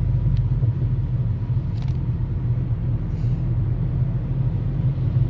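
Car driving: a steady low rumble of engine and road noise, with a faint short swish about every second and a half.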